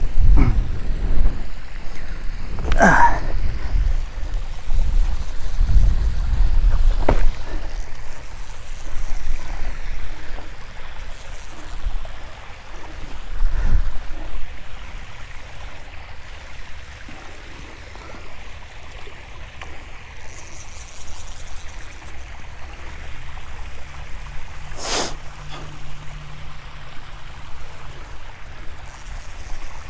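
Wind buffeting a body-worn camera microphone, a low rumble that is heavy in the first half and eases after, with a few sharp knocks from handling the rod and line.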